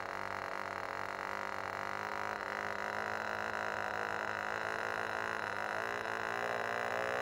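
Cox .020 model glow engine running steadily, just started, with a constant high buzz that slowly grows louder.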